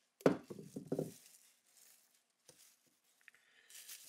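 Compressed air from a hand-held blow gun drying a freshly cleaned crankshaft bearing shell: a loud, rough blast about a second long near the start, and a fainter steady hiss near the end.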